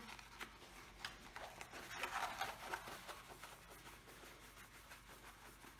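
Faint rustling and crinkling of plastic wrap being pulled off a rolled diamond-painting canvas, with small scattered clicks and taps from handling. The rustle is loudest about two seconds in.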